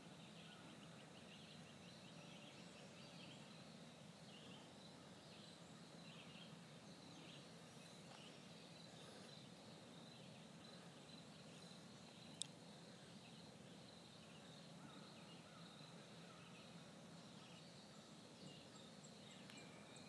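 Faint, scattered calls of a flock of wild turkeys over quiet background hiss, with a single sharp click about twelve seconds in.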